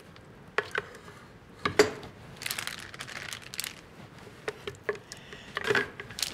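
Resealable plastic bag crinkling in short, scattered rustles as herb marinade is scraped into it with a rubber spatula. The sharpest crackle comes about two seconds in.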